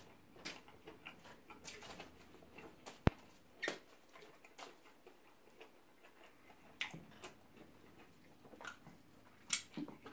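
Scattered soft smacks and clicks of people eating pounded yam and ogbono soup by hand: lips, fingers and chewing mouths, at irregular times, with one sharp click about three seconds in.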